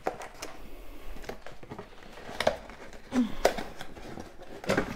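Cardboard product box handled and opened by hand: scattered light taps, scrapes and rustles of the card flaps.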